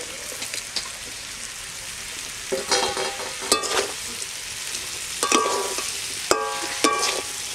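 Spiced amla pieces and cane jaggery sizzling in a metal karahi as a long metal spatula stirs them. From about two and a half seconds in come several short squealing scrapes and clicks of the spatula against the pan.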